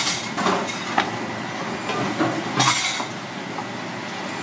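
Clatter and knocks from the shell and utensils on the cutting board over a steady background din. A louder rustling clatter comes about two and a half seconds in.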